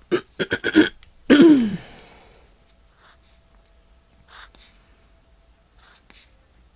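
A person's short wordless vocal sounds: a quick run of clipped pulses, then about a second and a half in a longer hum or sigh that falls in pitch. After that only faint small clicks of handling remain.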